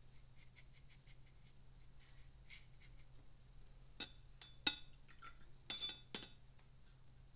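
Paintbrush clinking against a water cup, about five sharp, ringing clinks in quick succession in the second half, as the brush is rinsed and tapped off.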